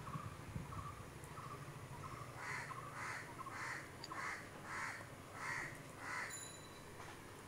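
A crow cawing: a steady run of about seven harsh caws, a little under two a second, starting a couple of seconds in, after a few fainter calls.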